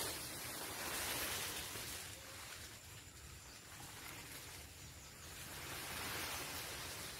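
Rustling of cut leafy branches being gathered up and dragged over dry leaf litter, swelling about a second in and again near the end.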